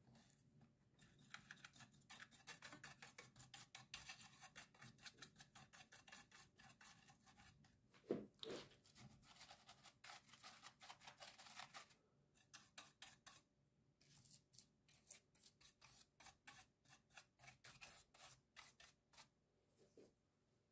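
Small bristle brush scrubbing dust off a laptop's cooling fan and its housing, in quick scratchy strokes several a second. The strokes pause briefly about two-thirds of the way through, and there is one louder knock about eight seconds in.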